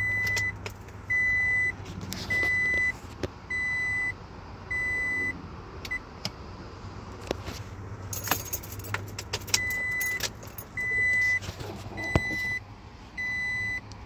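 Toyota Tacoma door chime: a steady high beep about half a second long, repeating roughly every 1.2 seconds. It cuts off about six seconds in and starts again near ten seconds, as the added door chime disable switch is turned off and on. A few sharp clicks and rattles are heard around the break.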